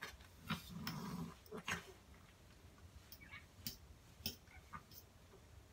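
A Persian cat gives a short, low growl about a second in while being brushed. Several brief scratchy brush strokes through its long fur are scattered around it.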